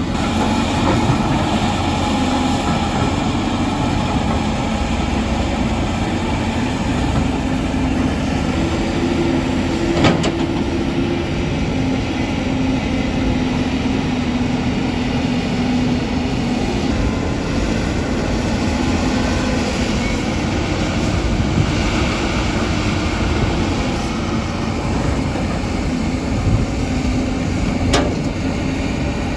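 CAT 320 excavator's diesel engine running steadily under load with a hydraulic whine, which rises in pitch for a couple of seconds about nine seconds in. A sharp knock comes about ten seconds in and another near the end.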